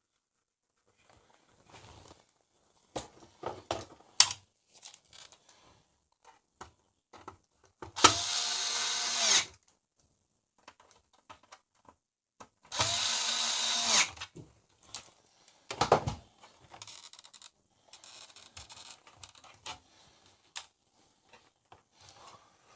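Electric screwdriver running in two bursts of about a second and a half each, driving screws in, with light clicks and handling of metal parts around them.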